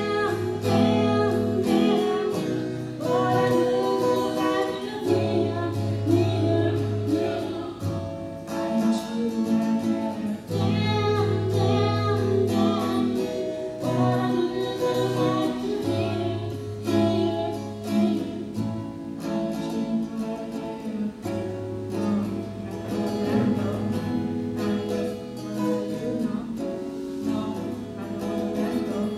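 A young man singing a pop song to his own steel-string acoustic guitar, played with a capo.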